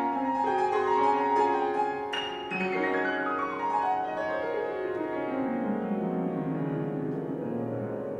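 Piano music: held notes, then from about three seconds in a long run of notes falling from high to low.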